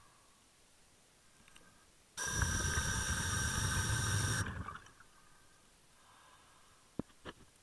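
Scuba diver breathing out through the regulator underwater: one rush of bubbles lasting a little over two seconds, beginning about two seconds in and trailing off. A few sharp clicks near the end.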